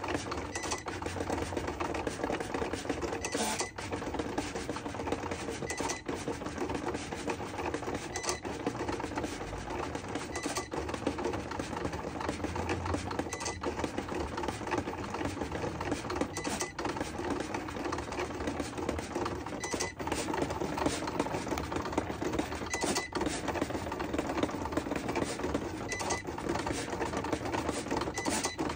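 Cricut electronic cutting machine cutting a design into vinyl. Its motors whir steadily as the carriage and rollers move the material back and forth, with a sharp click every two to three seconds.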